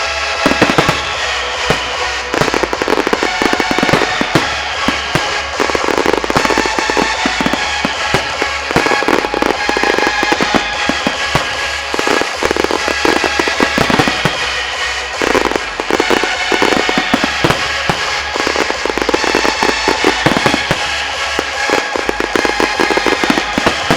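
Fireworks display going off continuously: dense, rapid crackling and popping of many shells, with music playing along with it.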